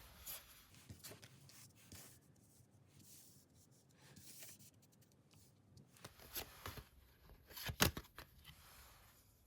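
Tarot cards being handled: faint paper rustling and light taps of cards, with a louder flurry of card sounds just before eight seconds in.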